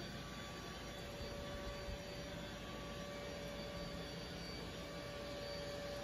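Samsung Jet Bot AI+ robot vacuum running on carpet: a steady, low whirring hum, with a thin steady tone joining about a second in.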